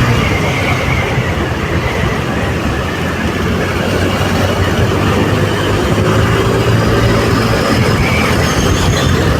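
A vehicle's engine running steadily with road and wind noise, heard from the moving vehicle as it drives at speed.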